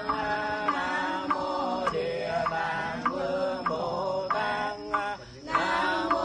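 A group of Vietnamese Buddhist monks and nuns chanting a requiem sutra in unison, kept in time by a wooden fish (mõ) struck with a mallet about every 0.6 seconds. The chanting breaks off briefly for a breath about five seconds in.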